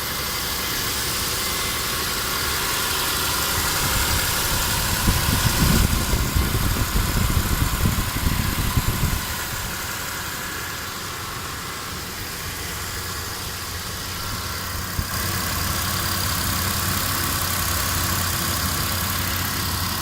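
Car engine idling, run to listen for a valve tap, which the owner says is barely audible. From about five to nine seconds in the low rumble grows louder and uneven, then settles back to a steady idle.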